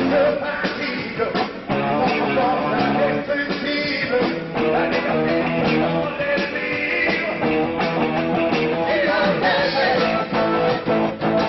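Rock band playing live, led by electric guitar over a steady drum beat, with singing.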